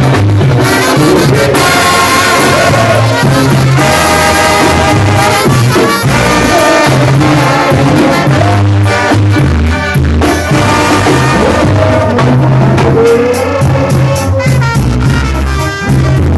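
Latin band music led by a trumpet section, playing loudly over a steady, repeating bass line.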